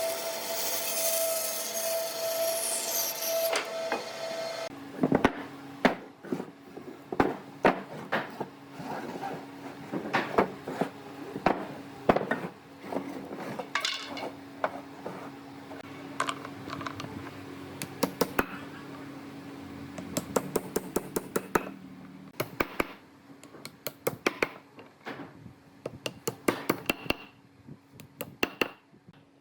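A power tool runs steadily and cuts off about five seconds in. Then come many irregular sharp knocks and taps of tools on wood, over a faint steady hum.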